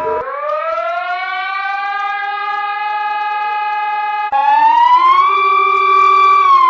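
Siren wail from an emergency alert alarm. It winds up in pitch and holds steady, then after an abrupt break about four seconds in it rises to a higher pitch, holds, and begins to fall near the end.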